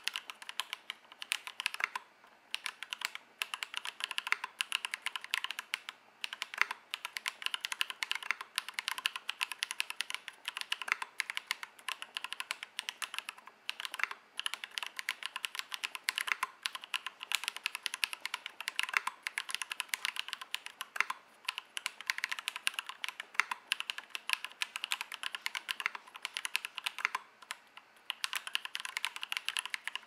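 Continuous typing on a Matrix Noah V2 mechanical keyboard with lubed Drop Holy Panda V2 tactile switches, a 1.5 mm aluminium plate and PBT keycaps: a quick, even run of key clacks broken by a few short pauses.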